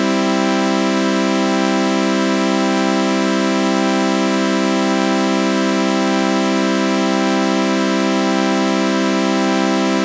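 Synthesizer sawtooth-wave chord through a flanger, held as one unchanging sustained chord with a slow, repeating sweep.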